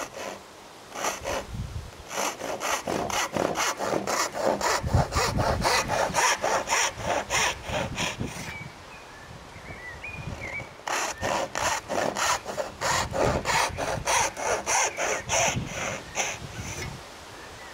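Brass-backed backsaw cutting down into a wooden board with quick, regular push-and-pull strokes, in two runs with a short pause between them.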